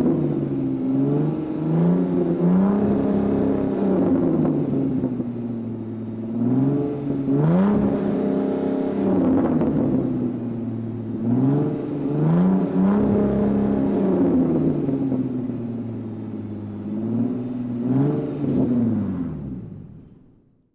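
Supercar engine sound effect: the engine idles steadily and is blipped through repeated short revs that rise and fall in pitch, in small groups every few seconds. It fades out near the end.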